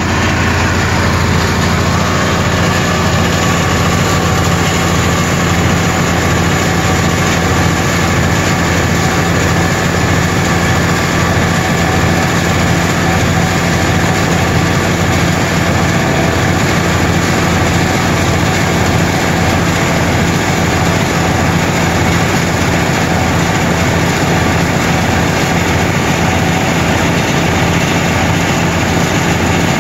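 Ingersoll Rand gas-engine air compressor running steadily and loud, the engine and pump going at an even pace.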